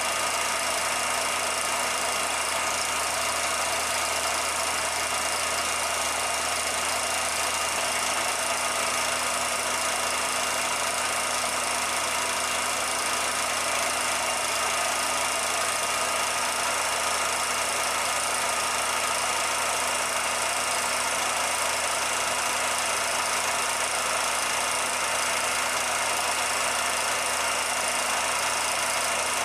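16mm film projector running: a steady mechanical whir and hiss with a constant hum, unchanging throughout, heard in place of a soundtrack on the silent film.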